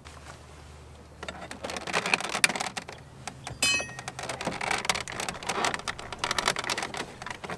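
Plastic door switch panel of a 2004 Chevrolet Silverado 2500HD being pried and worked out of the door trim by hand. Many quick clicks and knocks start about a second in, with a brief squeak about halfway through.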